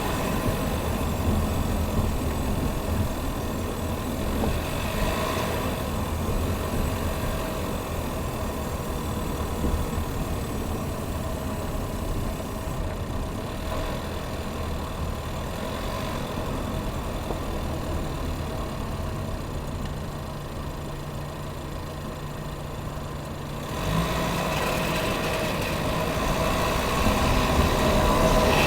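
A 2019 Chevrolet Equinox running with a steady engine hum. A low droning tone joins in about two-thirds of the way through and stops a few seconds later, when the overall sound gets louder.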